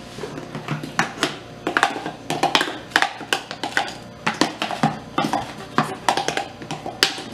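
Irregular clinks and knocks of a blender jar and kitchen utensils against a cooking pot as a thick cream sauce is poured onto spaghetti, two or three sharp taps a second.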